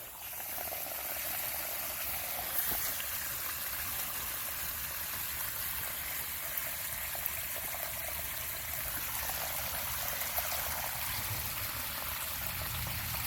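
Dirty carpet-cleaning water pouring out in a steady stream.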